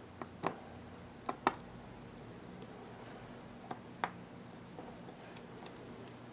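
Faint, sharp clicks of a small Phillips screwdriver working the tiny screws in an iPhone 4's metal frame: a couple about half a second and a second and a half in, then two more about four seconds in.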